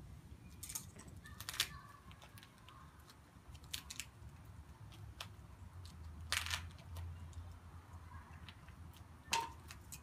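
Scissors snipping and duct tape being cut and peeled apart by hand: a handful of short, sharp snips and crackles with quiet gaps between, and one slightly longer tearing sound past the middle.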